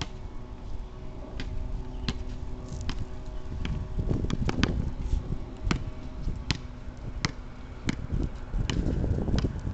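A basketball being dribbled on an asphalt driveway: sharp bounces at a steady pace of a little under one a second, with a low rumble of wind on the microphone.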